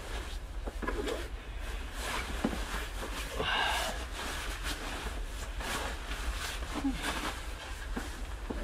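Scattered light rustling and small knocks over a low steady hum, with a louder scraping rustle about three and a half seconds in.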